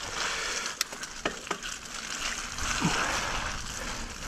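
Mountain bike rolling along a rutted dirt track: a steady rushing of tyre and wind noise, with a few sharp clicks about a second in.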